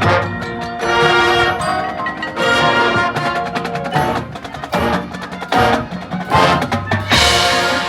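Marching band music, with the front ensemble's mallet percussion (marimba and xylophone) prominent over the band. About seven seconds in comes a loud full-band hit with a bright wash reaching into the highest pitches.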